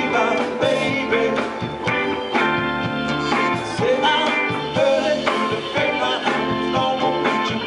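A rock band with keyboards, bass guitar and drums playing a blues-rock song at a steady tempo, with a melody line that bends in pitch over the band.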